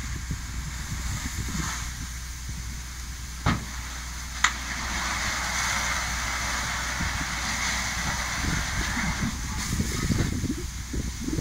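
Building fire being fought with a fire hose: a steady low rumble under a hiss of spraying water that swells from about four and a half seconds in until about nine. Two sharp cracks come about a second apart a little before that.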